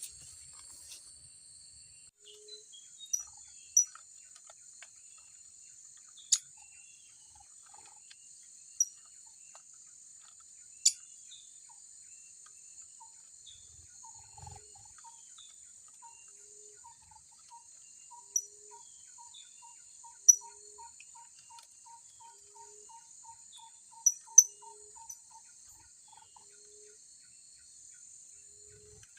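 Blue-crowned hanging parrots giving sharp, high, single chirps every few seconds, over a steady high insect drone. In the second half another caller adds a long run of evenly spaced lower notes, and a low note repeats about every second and a half.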